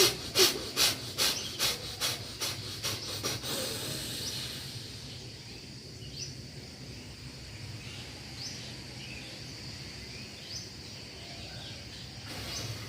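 Bhastrika pranayama: a person's forceful, rapid breaths through the nose, about two and a half a second, fading over the first three and a half seconds and ending in a longer drawn breath. The breath is then held, while a bird chirps every couple of seconds in the background.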